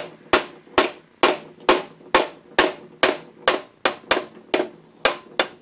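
A yellow-headed mallet striking the end of a 1947 Wards Logan lathe spindle in steady blows, about two a second, each with a short metallic ring, driving the spindle out of the headstock with its bearing coming out along with it.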